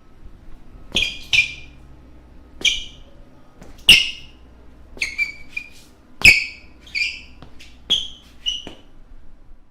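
Basketball shoes squeaking on a court floor: about a dozen short, high squeaks at irregular intervals, several with a dull footfall thud, the loudest about four and six seconds in.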